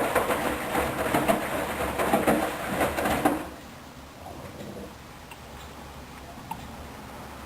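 Hoover Dynamic washing machine in the main wash of its duvet programme: the drum tumbling the wet duvet with swishing and many irregular knocks, stopping abruptly about three and a half seconds in and leaving a low hum.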